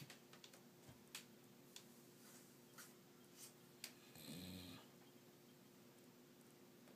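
A sleeping 13-year-old dog snoring faintly, with one snore about four seconds in. A few faint ticks come between the snores.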